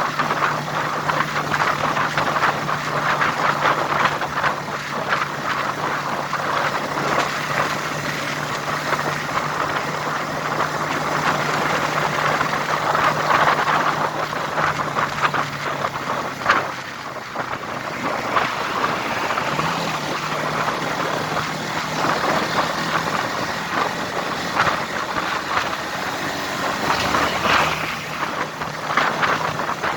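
Vehicle engine running steadily under road noise. Its hum drops about fifteen seconds in and comes back at a higher pitch near twenty seconds, a change of speed or gear.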